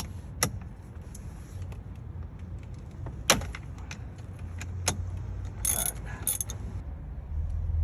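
Metallic clicks and clinks of a hand tool working on the 16 mm steering wheel bolt, a few separate sharp clicks, then two short rattling bursts about six seconds in.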